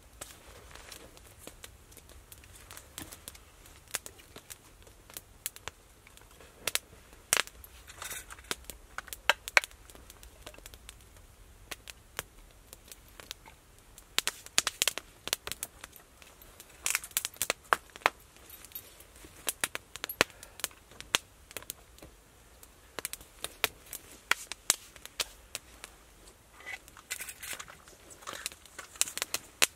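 A small smoky campfire of sticks crackling, with irregular sharp snaps and clusters of crackles as kindling is handled and fed to it.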